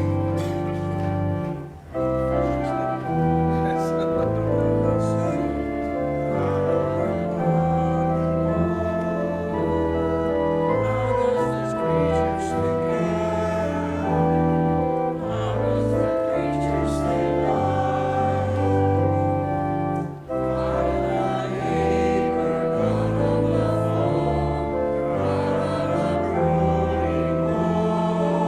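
Church organ playing a hymn in held chords over a steady bass line, with voices singing along. The music breaks off briefly twice, between phrases.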